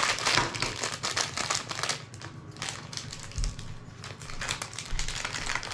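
Crinkly wrapper of a mystery toy ball being torn and pulled open by hand, a dense run of crackling for about two seconds that then thins to scattered crinkles.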